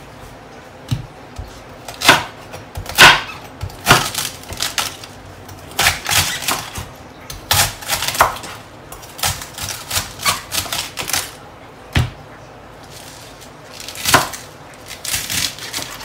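Chef's knife slicing through a cabbage and knocking on a wooden chopping board in quick, irregular strokes, with a short pause about twelve seconds in: cabbage being shredded for coleslaw.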